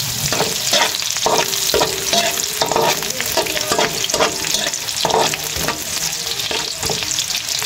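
Garlic, onion and ginger sizzling in hot oil in a wok while being stirred, with many short scraping strokes against the pan: sautéing the aromatics until golden brown.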